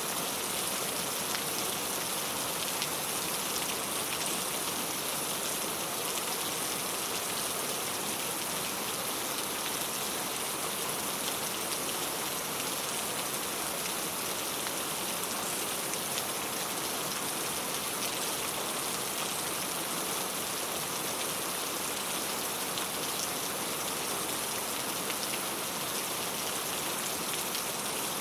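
Steady rain falling on a clay-tile roof: an even, unbroken patter with scattered individual drop ticks.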